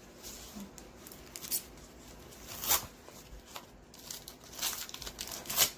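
Mail package being opened by hand: a series of short tearing and rustling sounds of packaging, the loudest about three seconds in and again near the end.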